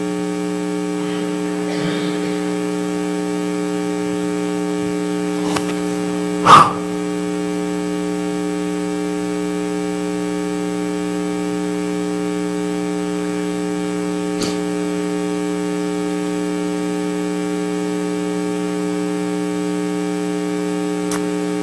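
Steady electrical mains hum and buzz in the sound feed, with one short loud bump about six and a half seconds in and a few faint clicks.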